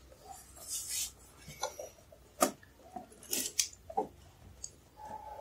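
Handling sounds of an Asus VivoBook 15 laptop being lifted and set down on a wooden floor. A brief rustle of packaging comes about a second in, followed by several sharp clicks and knocks.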